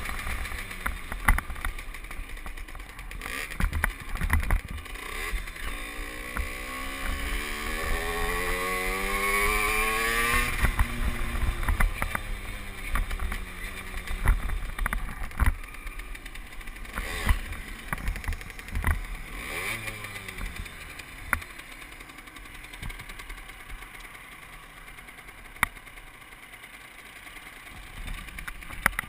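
Derbi Senda moped's small engine being ridden on the road. Its pitch climbs steeply under acceleration about a quarter of the way in, then drops, and rises again briefly later on. The engine goes quieter and lower as the bike slows to a stop near the end.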